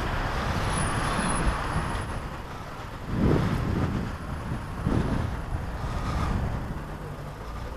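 Steady low rumble of road traffic, swelling louder about three seconds in and again about five seconds in.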